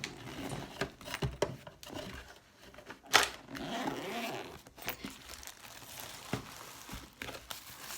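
Packaging being opened and handled: paper or plastic wrapping crinkling and tearing, with scattered clicks and knocks of the box and its contents, the loudest about three seconds in.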